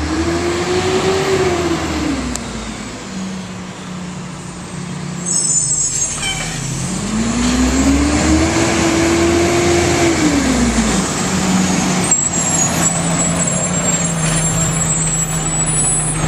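Garbage truck's diesel engine revving up and falling back twice as the truck pulls along, with a brief high brake squeal about five seconds in. From about twelve seconds in the engine runs steadily under a thin high whine.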